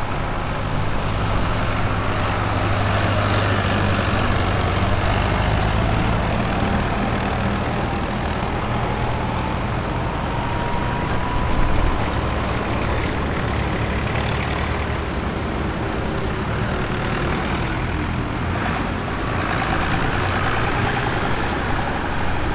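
Vintage tractors, among them a grey Ferguson, driving past one after another, their engines running with a steady low beat and a faint whine slowly rising in pitch partway through. A van drives past near the end.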